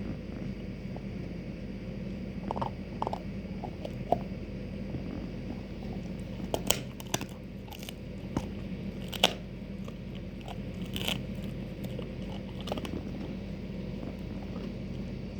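A Doberman crunching and gnawing on a cow bone, with irregular sharp cracks of bone, several loud ones in the middle. A steady low hum runs underneath.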